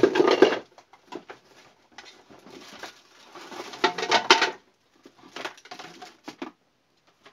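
Off-camera handling noise: rustling and clicking clatter of small objects being moved about, in irregular bursts, loudest at the very start and again around four seconds in.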